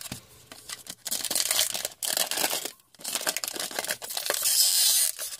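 Trading card pack wrapper crinkling and tearing as a pack is opened by hand, in two long stretches of rustling with sharp clicks between.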